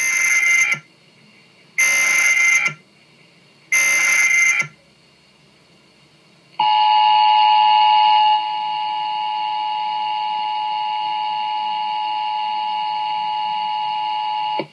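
Emergency Alert System broadcast tones: three short bursts of the warbling SAME data header, about two seconds apart, then the steady two-tone attention signal (853 and 960 Hz) that starts about six and a half seconds in and stops at the very end, announcing a tornado warning.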